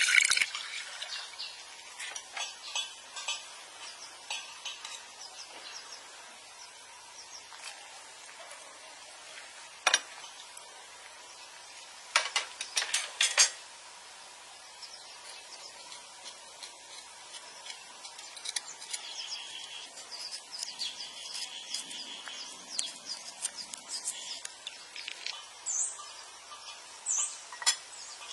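Water pouring into a cooking pot, ending about half a second in, then quiet outdoor ambience with scattered clinks and knocks of kitchen utensils and bowls: a sharp one about ten seconds in and a quick cluster a couple of seconds later. Birds call in the background, with short high chirps near the end.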